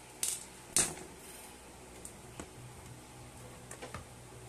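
Sharp handling clicks and taps over a faint steady hiss, as the screwdriver is set aside and the driver is worked out of a JBL Flip 5's plastic housing. Two louder clicks come in the first second, then a few fainter ones.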